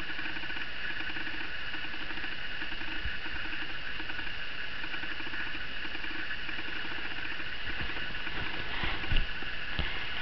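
Kitten purring, a low rapid pulsing in short runs with brief breaks between breaths, over a steady high-pitched hum. A short knock about nine seconds in.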